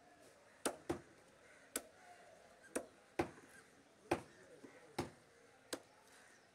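Long fish-cutting cleaver chopping through Malabar trevally and striking the wooden chopping block: about eight sharp chops at an uneven pace.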